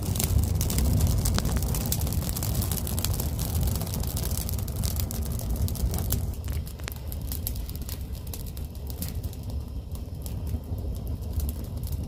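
Dry brushwood fire burning, crackling with many sharp pops over a low rumble.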